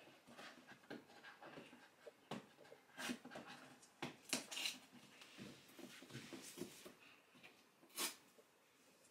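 A hand handling a cardboard box, with scattered light taps and rubs on the box. A sharper scratch comes near the end as the fingers work at the box's top edge.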